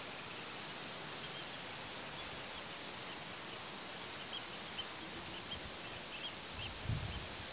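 Steady outdoor background hiss with faint, short, high bird chirps scattered through it, and a few low thumps on the microphone near the end.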